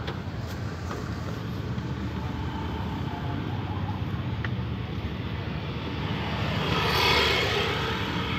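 Steady low traffic rumble, with one vehicle passing close by: it swells to its loudest about seven seconds in and fades away.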